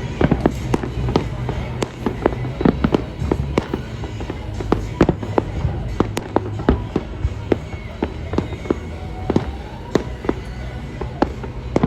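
Aerial fireworks bursting: a rapid, irregular string of sharp bangs and crackles, several a second, over a steady low rumble.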